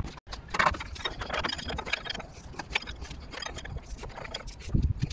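Wrench on the crankshaft pulley bolt turning a Nissan A14 engine over by hand: irregular clicks and scrapes of the tool, with a louder knock near the end. The crank is being brought round to top dead centre on cylinder one to set the ignition timing.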